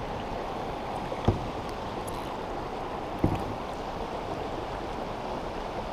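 Creek water rushing steadily, with two dull knocks about two seconds apart, the first just over a second in.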